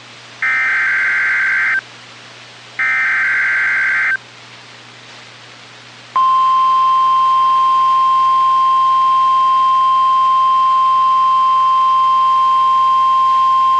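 NOAA Weather Radio emergency alert: two short bursts of SAME digital header data, each about a second and a half, a pause, then the steady single-pitch 1050 Hz warning alarm tone starting about six seconds in. Together they announce an incoming severe weather warning.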